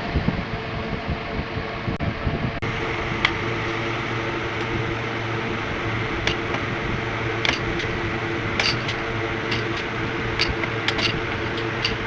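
Mini air cooler with a newly fitted fan motor, running with a steady hum, and scattered light clicks over it.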